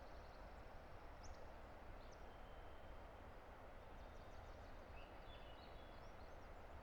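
Steady, faint rushing of a distant river, with a few faint high bird chirps and whistles about a second in and again past the middle.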